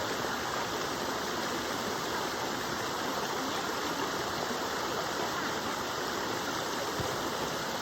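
Waterfall: a steady, even rush of falling water that runs unchanged throughout.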